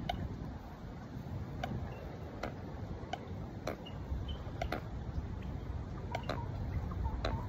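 Wind rumbling over the microphone, with irregular sharp ticks a little more than once a second.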